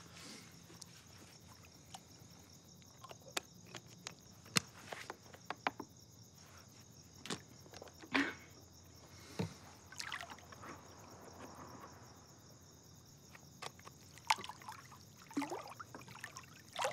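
Crickets chirping in a steady high trill, with soft water sloshing and lapping in a swimming pool and a few small clicks and splashes now and then.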